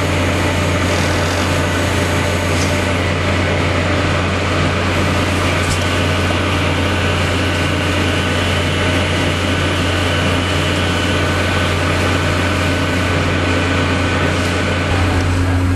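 Steady drone of a ship's machinery heard on deck: a constant low hum with a few faint, steady higher tones above it.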